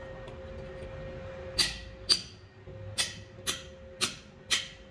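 Hammer blows driving a steel punch against a truck brake shoe to remove the old brake lining: six sharp metal-on-metal clanks, starting about a second and a half in and coming roughly every half second.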